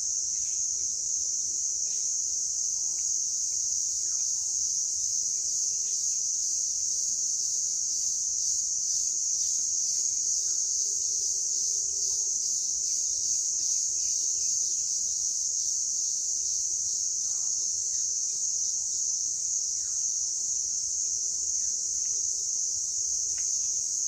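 Steady high-pitched chorus of crickets, with a few faint bird calls here and there.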